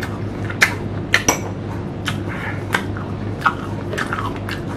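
Close-miked eating of unripe green mango: about eight sharp, crisp clicks, from crunching the firm slices and a fork clinking on the dish, over a steady low hum.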